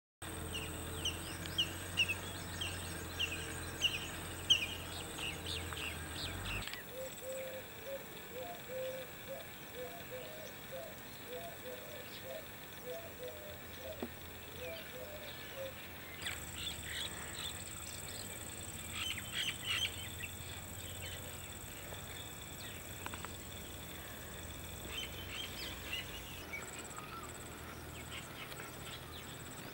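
Wild birds calling: quick high chirps, then a long run of low, evenly repeated notes, then more high chirping, over a steady high-pitched background tone.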